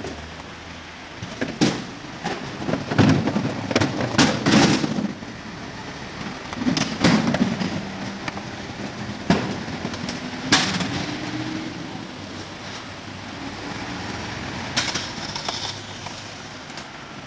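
Faun Variopress rear-loader garbage truck emptying waste bins. It gives a rapid run of loud clanks and bangs over the first few seconds, then single bangs spaced a few seconds apart. The truck's engine runs underneath, and its note rises once about two-thirds of the way in.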